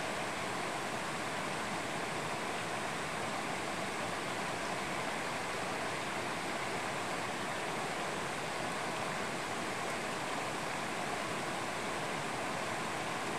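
Mountain stream rushing steadily over rocks.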